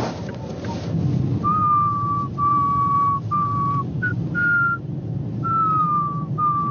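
A man whistling a slow tune, a string of held notes with small slides between them, over the low hum of a moving car's cabin.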